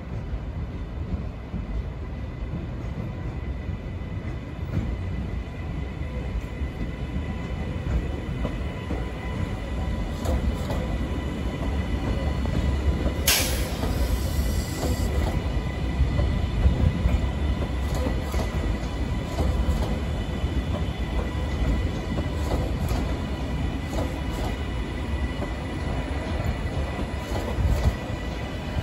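TransPennine Express Class 397 electric multiple unit arriving slowly over station pointwork: a steady rumble with a constant whine, and wheels clicking over the rail joints in the second half. A short burst of high hiss comes about halfway through.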